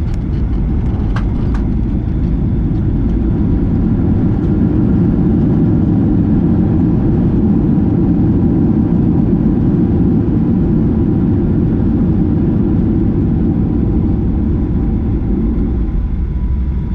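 Boeing 737-900ER cabin noise heard from a passenger seat: a steady, loud low rumble of the engines and airflow, easing slightly near the end.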